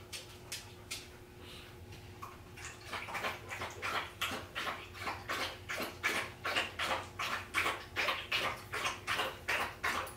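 A dog lapping water from a bowl: a quick, even pitter-patter of about three laps a second, starting about three seconds in after a couple of soft clicks.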